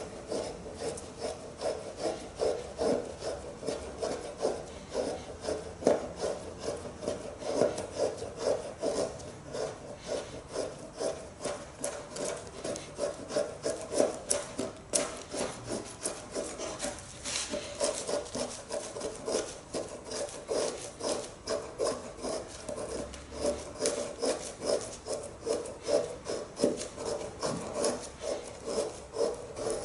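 A full-tang bushcraft knife blade carving wood in quick, repeated scraping strokes, a couple each second, steady throughout.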